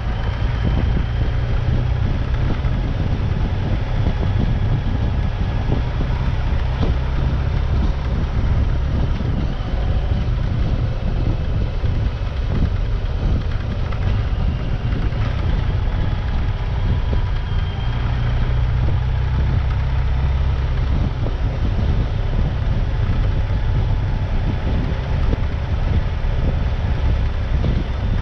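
Vehicle engine running steadily while driving off-road, with wind buffeting the microphone.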